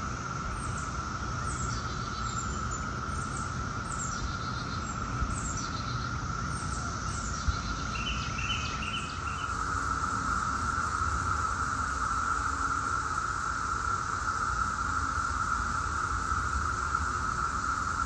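Brood X periodical cicadas (17-year cicadas) in a steady massed chorus, one unbroken droning whine that gets a little louder about halfway through. A few short, high bird chirps sound over it in the first half.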